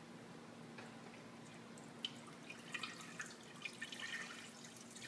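Chicken stock pouring from a carton into a stainless-steel stockpot, splashing and trickling; faint at first, it grows louder from about two seconds in.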